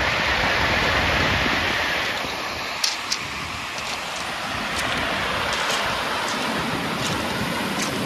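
Surf breaking and washing up a pebble beach, a steady rushing wash, with a few sharp clicks from about three seconds in.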